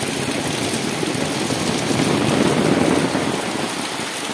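Heavy rain pouring down steadily, with a deeper rushing sound that swells around the middle and eases near the end.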